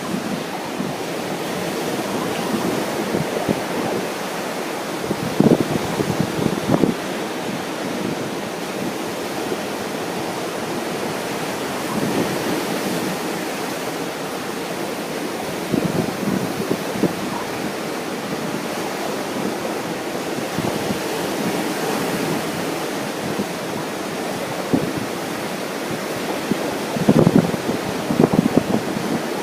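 Ocean surf washing onto a beach as a steady rushing noise, with strong wind buffeting the microphone in irregular gusts, heaviest near the end.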